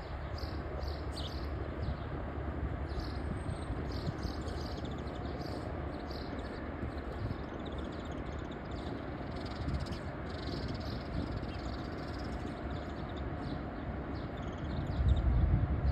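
Outdoor ambience by a river: a steady low rumble with short high chirps of small birds scattered throughout. The rumble swells noticeably louder near the end.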